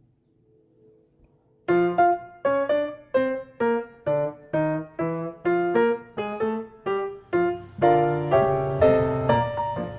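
Background piano music that starts about two seconds in after near silence, with notes struck about twice a second and fuller chords near the end.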